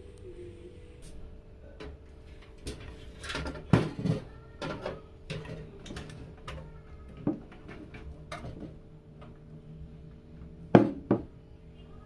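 Irregular clicks and knocks of PC case parts and components being handled and fitted, with a sharper cluster about four seconds in and a loud knock near the end.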